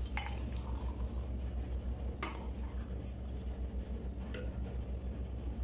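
A steel ladle clinking against a steel saucepan a few times as milky tea is scooped out and poured into mugs, over a low steady hum.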